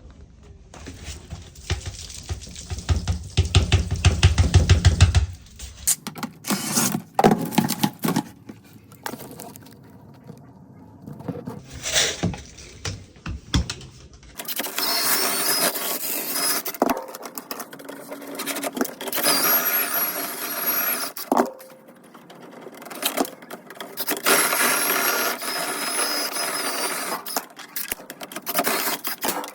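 Dryer vent cleaning tools working in a metal duct. There is a rattling rumble at first, then scattered knocks and scrapes, then a motor running with a high whine in several bursts of a few seconds each.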